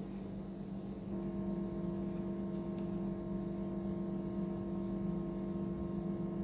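A steady hum made of several fixed tones, a little louder from about a second in.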